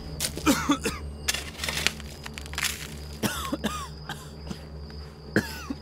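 Loose dirt and gravel landing on a man buried in a grave in short crunching spatters, while he lets out short coughs and gasps.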